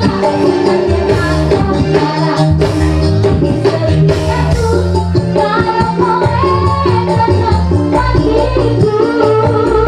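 Dangdut koplo band music: a steady bass and kendang drum rhythm with tambourine jingles under a keyboard melody.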